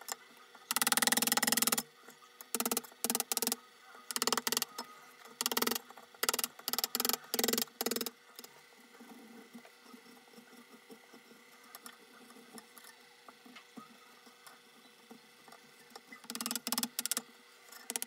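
Hand file scraping across black cherry wood in a series of strokes, some short and some about a second long, for the first eight seconds. Then a long stretch of faint light scraping, and a quick run of short strokes near the end.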